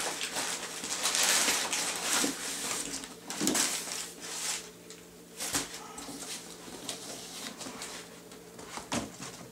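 Cardboard and packaging rustling and scraping as a box is opened and an inner box is pulled out, in several stretches, with a few sharp knocks of the box being handled.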